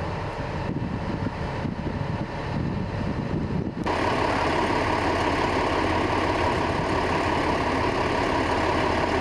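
Bulldozer's heavy diesel engine running with a steady low rumble; about four seconds in the sound switches abruptly to a louder, higher, steady mechanical din.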